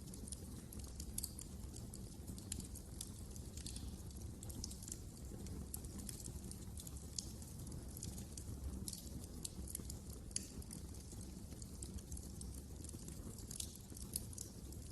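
Wood fire crackling in a fireplace: irregular sharp pops and snaps, some in quick clusters, over a low steady rumble.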